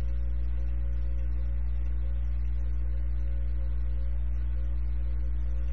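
Steady low electrical mains hum with a stack of faint overtones, unchanging throughout.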